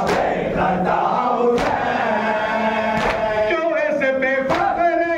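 A crowd of men chanting a noha together, the voices settling into a sung line in the second half. Sharp unison chest-beating (matam) strikes land about every second and a half, four times.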